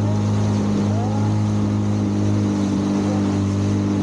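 Outboard motor of a small fishing boat under way at a steady cruising speed: a constant engine drone that holds one pitch, over a steady hiss of rushing water.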